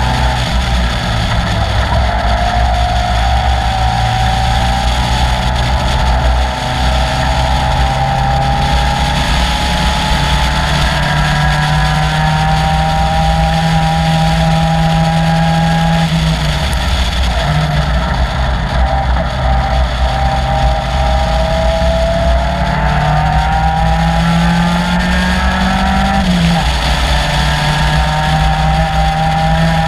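Caterham Seven's 2.3-litre Ford Duratec four-cylinder engine running hard at racing speed, heard on board. Its note climbs slowly over long pulls and drops sharply twice, about halfway through and near the end.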